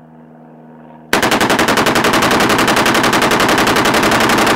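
Two full-auto AK pistols in 7.62×39 firing together in one long unbroken burst at a very fast rate, emptying two 40-round magazines, 80 rounds in all. The burst starts about a second in and stops abruptly near the end.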